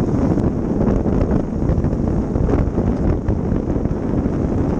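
Steady wind buffeting on a helmet-mounted camera's microphone with the rumble of a motorcycle riding over a dirt track.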